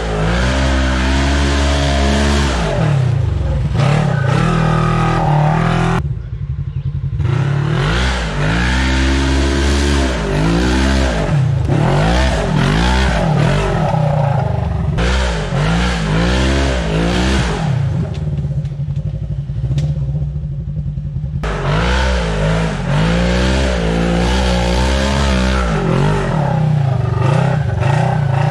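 Polaris RZR XP 1000 side-by-side's engine revving up and down again and again under load as it crawls up a steep dirt hill trail. Twice it briefly goes duller.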